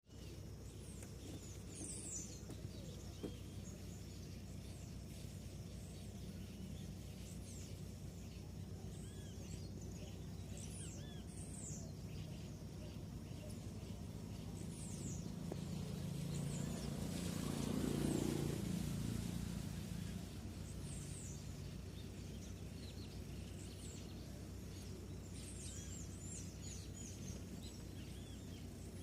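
Outdoor ambience: small birds chirping now and then in short, high notes over a steady low rumble. A broad swell of noise builds and fades in the middle.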